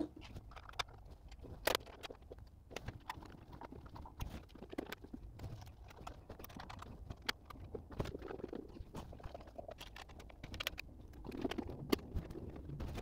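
Faint, irregular clicks and light metallic taps of hand work on a 3D printer's frame: a small hex key turning screws in metal brackets, with parts being handled.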